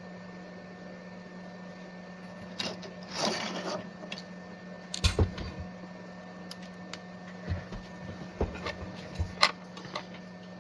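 Small tools and parts being handled on a workbench: a brief rustle about three seconds in, then scattered clicks and taps over a steady low hum.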